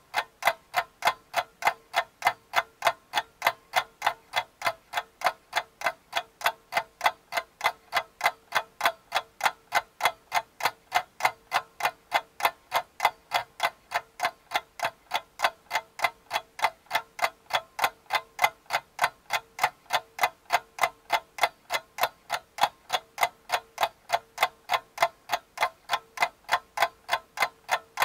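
Clock ticking steadily and evenly, about three ticks a second.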